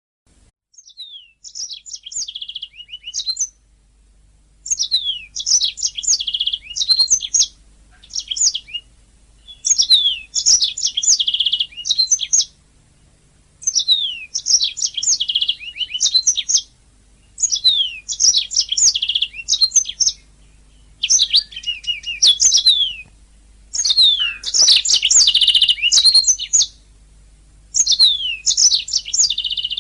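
Domestic canary singing: about a dozen phrases of rapid, high trills and quick down-slurred notes, each a second or two long, with short pauses between them.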